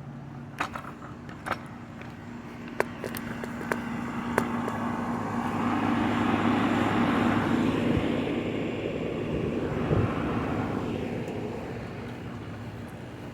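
A vehicle passing by, its noise swelling over several seconds, peaking in the middle and fading again, with a few sharp clicks before it builds.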